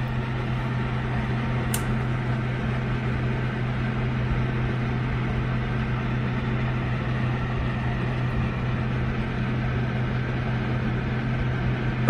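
FHstars ceramic space heater's fan running steadily at its maximum setting: an even rush of blown air over a low motor hum. This is the loudest it gets. A faint click comes about two seconds in.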